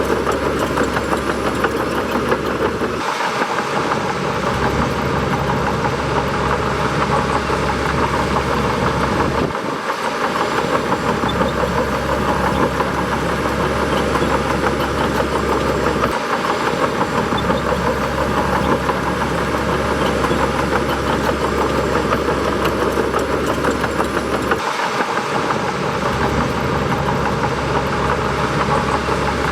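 Large bulldozer's diesel engine running steadily, its low rumble briefly dropping out four times.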